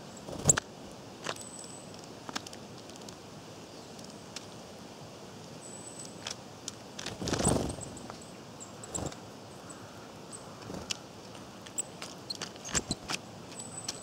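Quiet woodland ambience: a faint steady hiss with scattered sharp ticks and rustles in the leaf litter, a louder brief rustle about seven seconds in, and a few faint, very high, thin bird calls.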